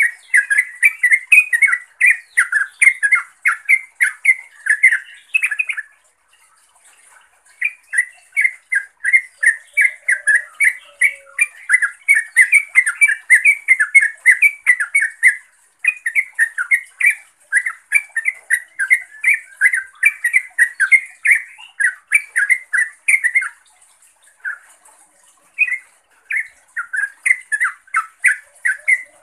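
Yellow-vented bulbul (trucukan) calling to rivals or companions in fast runs of short, sharp chattering notes, about four a second. The runs come in bouts of several seconds, broken by short pauses.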